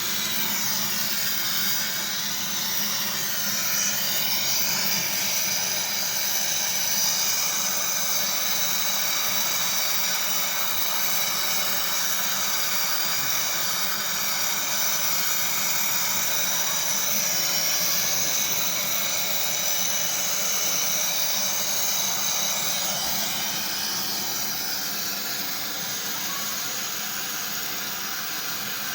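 R600 refrigerant gas hissing as it flows through the charging hose into an Ariston refrigerator's sealed system, a steady hiss with high thin whistling tones over it that eases a little near the end.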